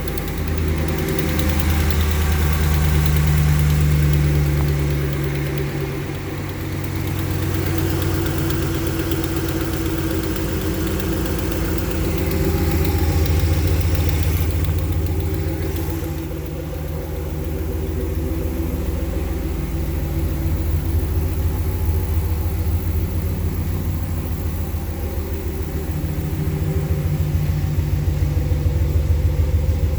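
2014 Ram 1500's 5.7-litre Hemi V8 running steadily with a rapid ticking, tapping or clicking from the engine, which the owner traces to a broken valve spring.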